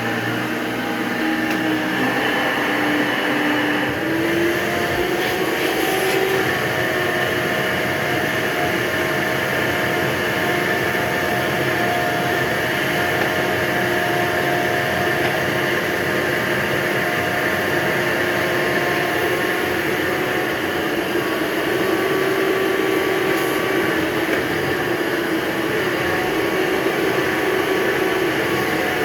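Hoover Breathe Easy (SoftGuard) upright vacuum cleaner running steadily, a 7.3-amp motor with a whining hum whose pitch shifts slightly now and then.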